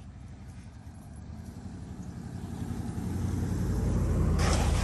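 A motor vehicle's engine running with a low, steady hum that grows gradually louder, as if approaching, with a short burst of noise near the end.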